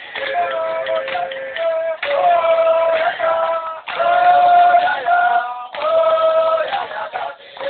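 Voices singing a repeated phrase of long held notes, each phrase about two seconds long with a short break between.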